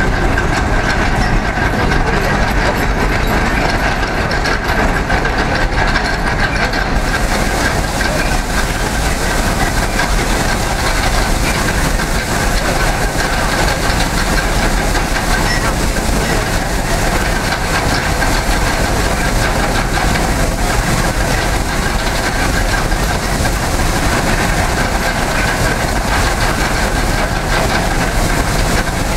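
Horse-powered sweep running, its gearing, tumbling rod and belt-driven pulley jack clattering steadily as a pony walks the circle. A faint steady whine runs through the clatter.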